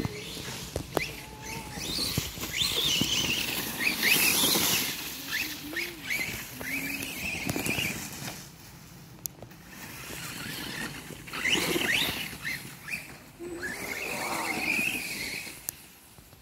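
RC car motors whining as they rev up and back down again and again while the cars drive over dry leaves, with the noise of tyres churning through leaf litter.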